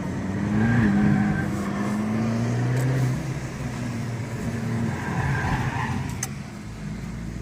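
Abarth 595 Pista's turbocharged 1.4-litre four-cylinder on its stock exhaust, pulling hard with the note rising about a second in and then holding through a corner. The tyres squeal briefly twice, early on and again about five seconds in.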